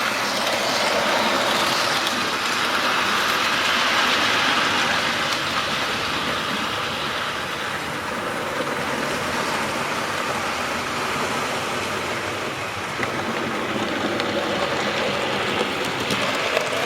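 A hex-shank drill bit in a screwdriver drilling a clearance hole through circuit board, a steady grinding noise.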